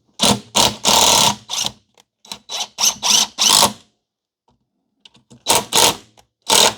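Cordless impact driver hammering in short trigger bursts as it drives a Phillips screw, a run of bursts in the first four seconds, a pause, then more near the end.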